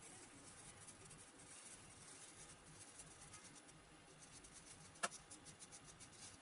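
Faint scratching and rubbing of a small hand tool working a slot in an EPP foam fuselage, with one sharp click about five seconds in.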